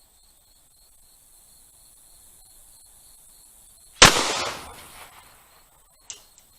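A single 12-gauge birdshot shot from a homemade slam-fire pipe shotgun about four seconds in, with a blast that rings out over about a second. A short sharp click follows about two seconds later.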